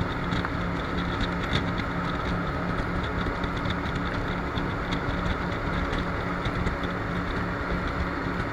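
Jet boat engine running at a steady pitch under a constant rushing noise.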